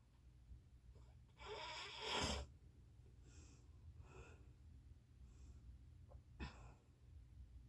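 A sleeper snoring: one loud, drawn-out snore about a second and a half in, then soft, faint breaths with a short sharp one near the end.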